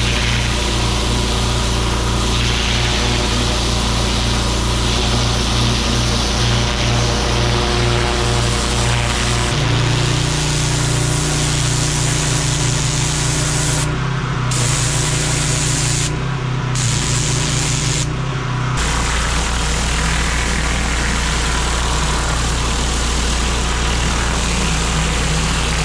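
Pressure washer running: a steady engine hum under the loud hiss of a high-pressure water jet blasting dirt and moss off block paving, then a rotary surface cleaner working a patio. The hum and hiss jump abruptly a few times, about ten seconds in and three times in the middle.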